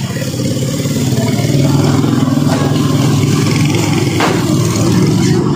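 Motor vehicle engine running steadily, growing a little louder over the first second or two, with a single knock about four seconds in.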